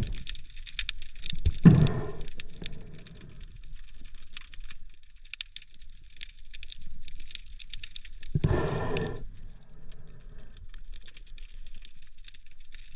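Underwater sound during a spearfishing dive: a constant fine crackling and clicking, broken twice by a short rush of bubbling, about two seconds in and again about eight and a half seconds in.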